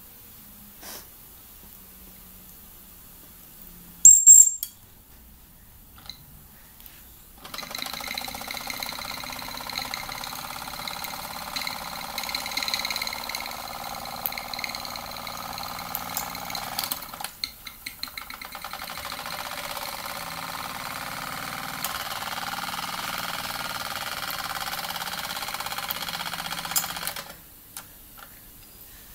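Mamod TE1A toy steam traction engine's single oscillating cylinder running fast after being turned over: a rapid, steady chuffing with steam hiss that starts about seven seconds in, falters briefly about halfway and cuts off near the end. A short, sharp, very loud high sound about four seconds in.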